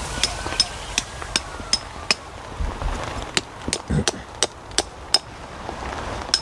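A string of sharp knocks or taps, about two a second and unevenly spaced, over a low rumble.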